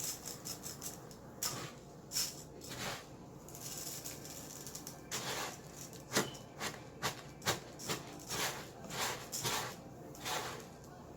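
Glue slime packed with rice being squished and kneaded by hand, giving irregular crackles and squelchy clicks.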